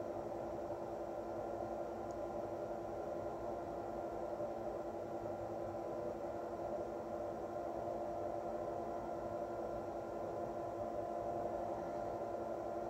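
Steady background hum with a few held tones over faint hiss, unchanging throughout; no distinct handling or screw sounds stand out.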